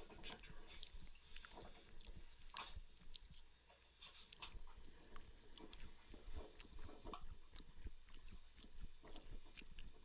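A person chewing food close to a headset microphone: irregular quick mouth clicks, several a second, with a brief lull about four seconds in.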